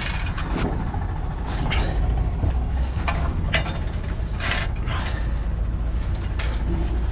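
Heavy lifting chains clinking and rattling against metal as they are passed over a truck axle and hooked up, a scattering of sharp clinks, over a steady low engine rumble.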